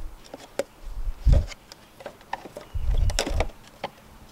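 Plastic engine-bay trim covers being unclipped and lifted off by their tabs: scattered sharp plastic clicks and knocks, with a few low thumps and a short clatter about three seconds in.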